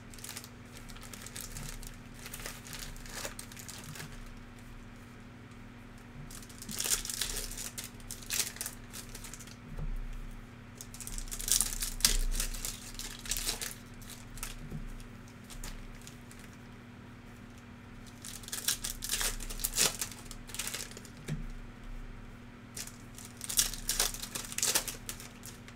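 Plastic and foil trading card pack wrappers crinkling and tearing as packs are ripped open by hand. It comes in several bursts, with quieter clicks of card handling in between.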